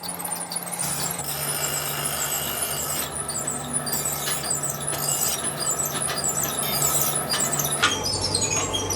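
Metalworking machinery running in a factory, with high-pitched metal squealing and scattered light ticks over a steady low hum. The hum changes pitch about a second in and again near the end.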